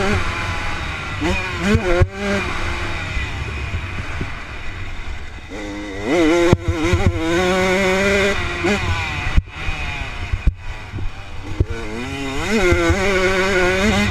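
Dirt bike engines revving, the pitch climbing and falling with throttle and gear changes and holding steady in stretches.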